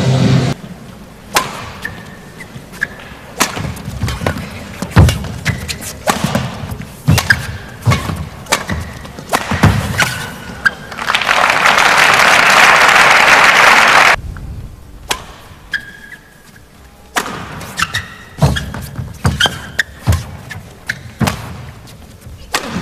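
Badminton rally: sharp racket strikes on the shuttlecock about once a second, with short shoe squeaks on the court floor. A burst of crowd applause follows for about three seconds, after which more single hits and squeaks sound near the end.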